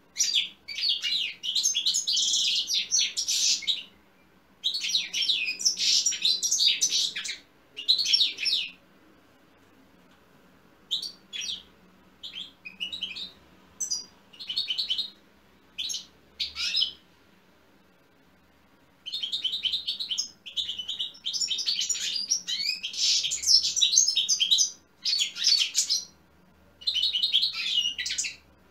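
European goldfinch singing: fast, high twittering phrases a few seconds long, separated by short pauses, with a looser run of brief notes in the middle and a long unbroken stretch of song near the end.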